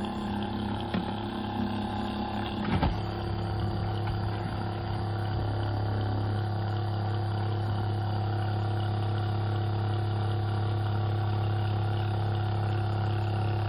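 SHURflo electric oil-change pump running with a steady hum as it draws engine oil from the boat's drain, with no oil yet coming out of the outlet. About three seconds in there is a short knock, and after it the hum turns deeper and steadier.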